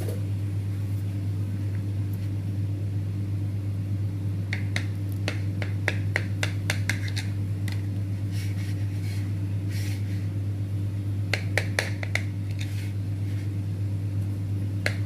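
Light clicks and clinks of a ceramic plate being shifted on a marble countertop and a knife touching it, in loose clusters starting about four seconds in. A steady low hum runs underneath.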